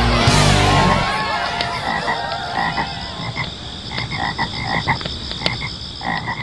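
Background music ends about a second in, leaving an outdoor animal chorus: repeated short croaking calls over a steady high drone.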